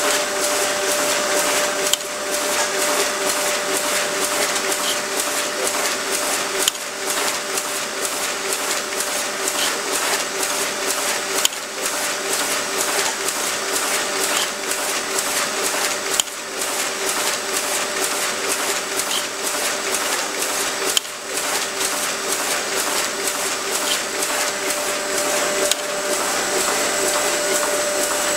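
Sheet-fed printing machine running, a fast even mechanical clatter over a steady hum, with a sharper click about every five seconds.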